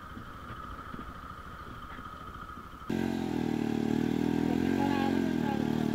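Motorcycle engines on a muddy trail: a quieter rumble of a bike being ridden at first, then, about three seconds in, the much louder single-cylinder engine of a Bajaj Pulsar 220 running close by as it works through the mud, its pitch dipping and rising with the throttle.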